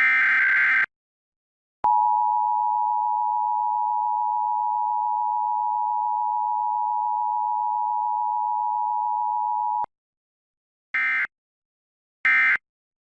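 Emergency Alert System tones from a Required Monthly Test: the last screeching data burst of the header, then the steady two-tone attention signal for about eight seconds, cut off suddenly, then three short data bursts of the end-of-message code near the end, with no spoken message between.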